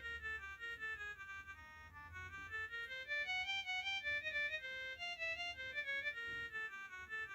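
Imitation Nokia C1-01 ringtone: a melody of quick, short notes, a little softer around two seconds in.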